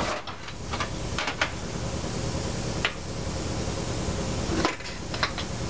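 A few light metal clicks and knocks of connecting rod parts being handled on an outboard V6 crankshaft, spaced out over several seconds, over a steady low shop hum.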